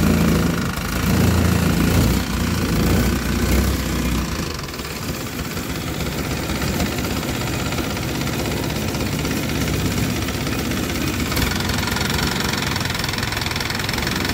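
A long-tail boat's exposed inboard car-type engine, exhausting through an open straight pipe, running steadily under way. Its low rumble is stronger for the first four seconds or so, and a hissing noise joins about eleven seconds in.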